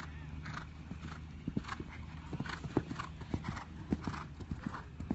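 A horse cantering around a jumping course: hoofbeats on the arena footing, with a rhythmic blowing breath about twice a second, in time with its stride.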